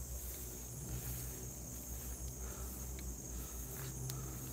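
A steady high-pitched chorus of crickets and other night insects, with footsteps through leafy undergrowth and a few sharp clicks, the clearest about four seconds in.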